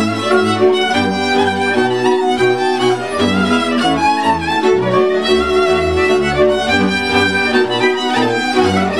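Transylvanian village string band playing an învârtita dance tune: fiddles carrying the melody over the chords of a contra (three-string viola) and the steady, pulsing low notes of a double bass.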